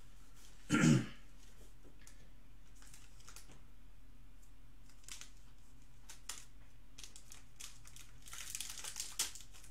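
Trading card packs being handled and opened: a loud thump about a second in, then scattered light clicks of cardboard and plastic, and near the end a burst of crinkling as a plastic pack wrapper is handled and torn.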